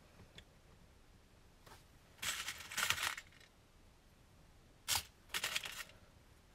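Small metal brads and eyelets clinking and rattling in a clear plastic compartment box as fingers sift through them, in two short stretches about two and five and a half seconds in, with a single sharp click just before the second.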